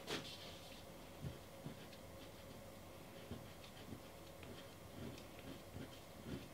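Pastel stick dabbed and stroked on pastel paper: faint scattered light taps and scratches, with a short scrape right at the start.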